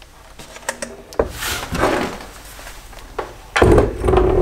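Black plastic BMW M50 intake manifold being handled on a wooden workbench: a scrape of plastic on wood about a second in, then a heavy knock and rumble near the end as it is set down.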